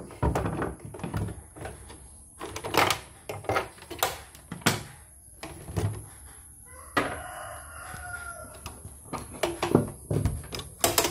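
Repeated knocks and plastic clatter from handling the opened plastic housing and power cable of a CNY E900 embroidery machine. About seven seconds in, a rooster crows once in the background for about a second and a half, quieter than the knocks.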